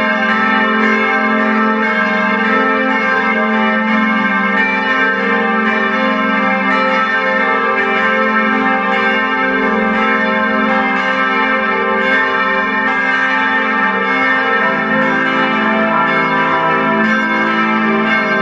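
Several large Grassmayr-cast church bells ringing together. Their strokes overlap steadily in a continuous ringing wash, and a deeper note comes in about fifteen seconds in.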